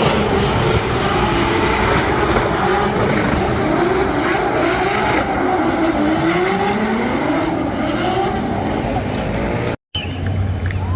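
Drift car engine revving hard, its pitch swinging up and down again and again as the throttle is worked through a drift, over a loud wash of tyre and track noise. The sound cuts off abruptly near the end.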